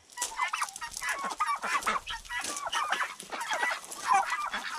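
Flock of chickens and turkeys clucking and calling, many short overlapping calls with no pause between them.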